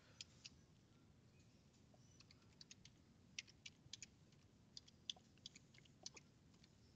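Faint, unevenly spaced keystrokes on a computer keyboard as numbers are typed in one at a time.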